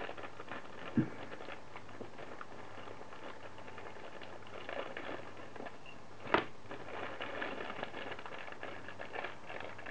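Handling sounds at a desk over a steady low hum: a soft thump about a second in and a sharp tap about six seconds in, with faint rustling in between and after.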